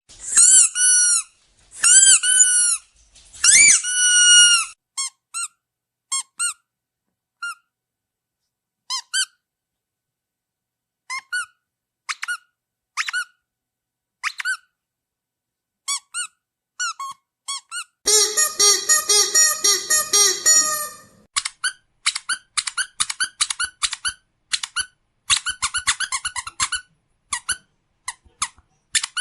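Squeaky dog toy being squeezed again and again. First come a few long, high squeaks, then single short squeaks a second or so apart. About two-thirds of the way in there is a few-second run of lower-pitched rapid squeaking, followed by quick runs of short squeaks.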